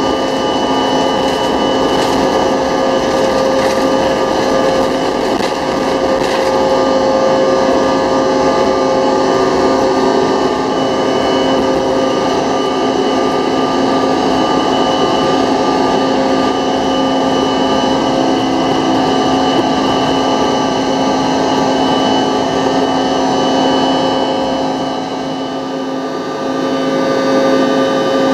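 The rear-mounted GE CF34 turbofan engines of a Bombardier CRJ900 at high takeoff and climb power, heard in the cabin from a window seat beside the engine. A steady engine roar carries a strong fan whine and several held tones, and the level dips briefly near the end.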